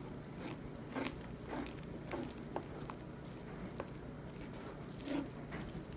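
A slotted spoon stirring corn kernels through a creamy sauce in a skillet: soft wet squishing, with several light scrapes and taps of the spoon against the pan.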